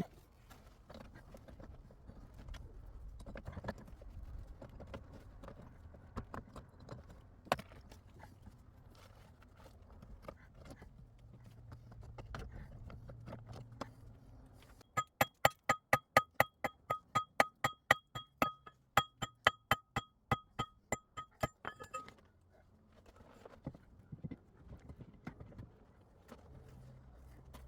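A fast run of metal hammer blows, about four a second for some seven seconds, each ringing at the same pitch, between quieter knocks and scraping on rock.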